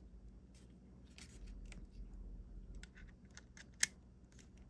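Faint scattered clicks and rustles of a lavalier microphone and its cable being handled, with one sharper click near the end.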